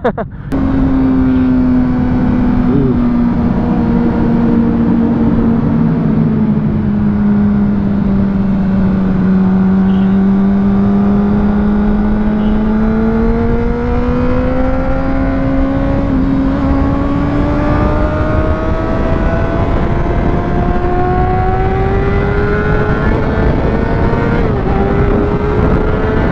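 600 cc inline-four sport bike engine running at freeway speed under heavy wind rush. Its note sags a little over the first several seconds, then climbs steadily as the bike accelerates, with a brief dip near the end.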